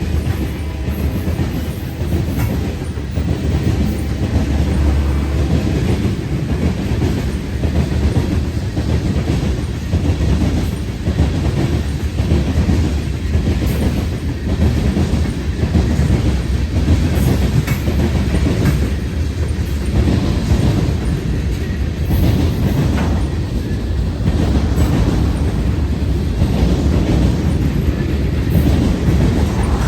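Union Pacific freight train's cars rolling past in a steady, loud rumble, the wheels clacking irregularly over the rail joints.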